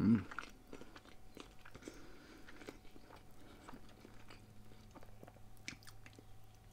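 A person chewing food close to the microphone: soft, irregular mouth clicks and small crunches.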